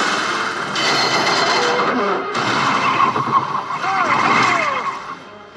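Cartoon action sound effects: loud, dense vehicle-like noise with a few short gliding cries, fading near the end.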